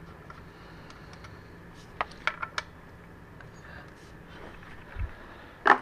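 Metal hand tools and sockets being handled: three sharp clicks about two seconds in, a dull thump near the end and a louder click just after it, over a faint steady hum.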